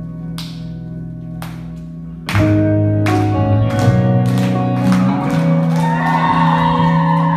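Recorded music: held chords with a few sharp percussive hits, swelling much louder about two seconds in, then a fuller texture with hits about every half second.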